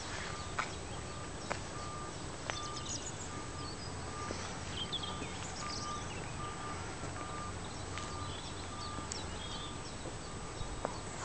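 Outdoor background with a faint electronic beep repeating about twice a second, like a vehicle's reversing alarm, which stops near the end. Scattered bird chirps and a few sharp clicks are heard over it.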